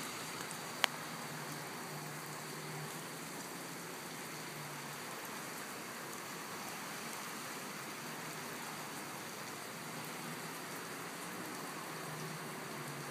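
Steady rain falling on a wet street and pavement, an even hiss throughout. There is a single sharp click a little under a second in.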